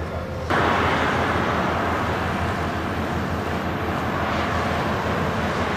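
Fighter jet engine roar, steady and loud, cutting in suddenly about half a second in.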